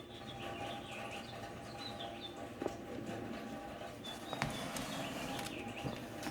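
Small birds chirping in short repeated calls, with a few sharp clicks.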